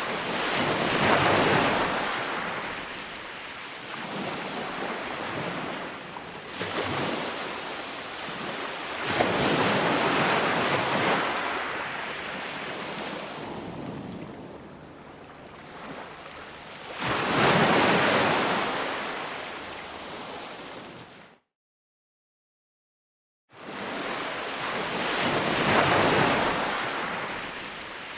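Ocean waves breaking on the shore, a rushing surf that swells and fades every few seconds with several larger breakers. It cuts to complete silence for about two seconds near three-quarters of the way in, then the surf resumes.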